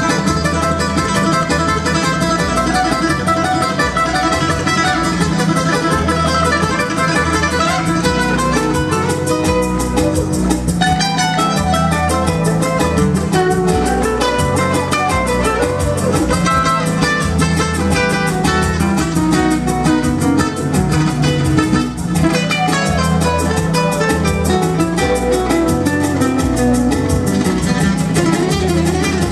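Two acoustic-electric guitars playing a duet: a fast, flamenco-flavoured plucked melody over a steady, repeating bass part.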